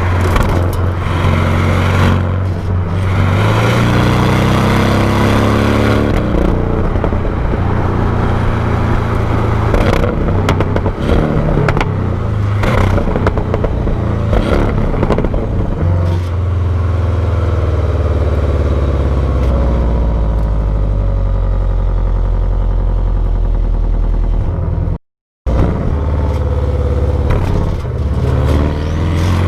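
Exhaust note of a 2019 Porsche 718 Cayman GTS's turbocharged 2.5-litre flat-four on the stock exhaust, picked up close to the tailpipes. The pitch rises as the engine revs up in the first few seconds, holds fairly steady, then shifts again about midway. The sound cuts out completely for a moment near the end.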